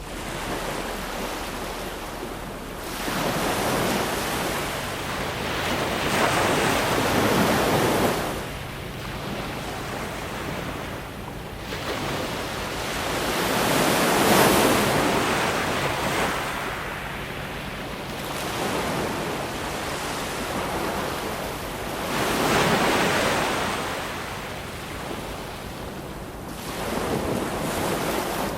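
Ocean waves breaking and washing ashore, the surf swelling and easing in surges roughly every seven or eight seconds, the loudest about halfway through.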